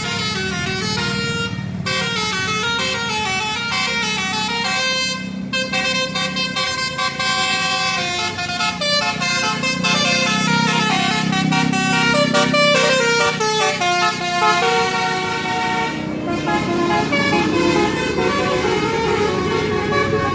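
Bus telolet horn (Basuri brand) playing a fast multi-note melody, its tones stepping up and down in a repeating tune, with the bus engine running underneath.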